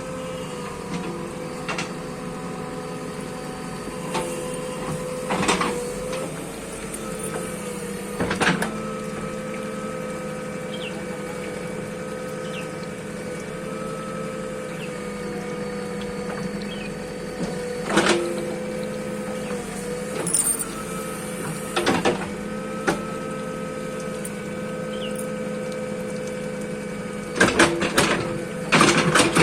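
Bulldozer's diesel engine running steadily, with a short knock or clank every few seconds and several close together near the end.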